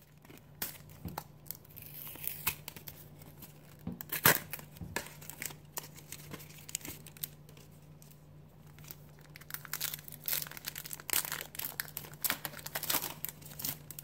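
A Pokémon trading card booster pack being torn open by hand: irregular rips and sharp crinkles of the wrapper, loudest about four seconds in and again in a dense run near the end.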